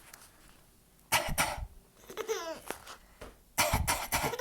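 A person coughs hard in a burst about a second in and again near the end. Between the coughs a young child laughs, a high giggle that falls in pitch.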